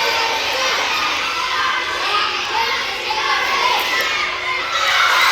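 A crowd of schoolchildren shouting and calling out together, swelling into louder cheering near the end.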